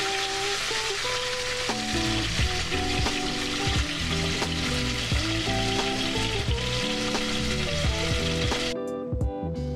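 Flounder fillets sizzling as they fry in a pan over a gas flame, with background music under the sizzle. The sizzle cuts off abruptly shortly before the end, leaving the music.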